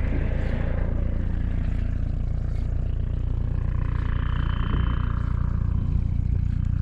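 Helicopter in flight: a steady low rumble, with a higher whine coming in for a couple of seconds midway.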